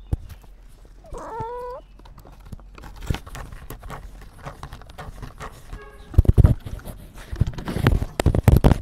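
Rustling, scraping and loud irregular knocks as a collar-mounted camera is jostled and brushes against wood and rubble while the cat wearing it creeps under a timber pile; the knocks are loudest over the last few seconds. About a second in, a single short animal call is heard.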